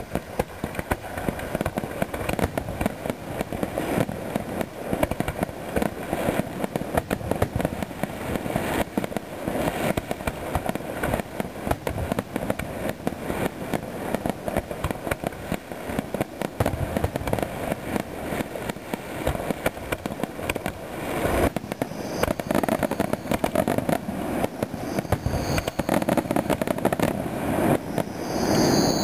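Aerial fireworks display: a continuous rapid barrage of shell bursts and crackling, with a few high gliding whistles near the end.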